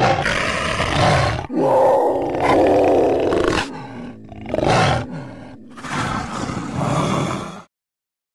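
A big cat growling and roaring loudly in a string of long snarls that cut off abruptly near the end, laid in as a jaguar sound effect.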